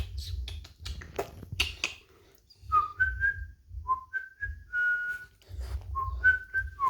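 A person whistling a string of short notes that step up and down in pitch, starting a few seconds in, after some clicks and rustling.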